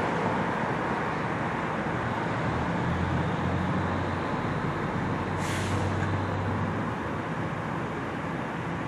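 Steady street traffic noise with a vehicle engine idling low through the middle, and one short hiss about five and a half seconds in.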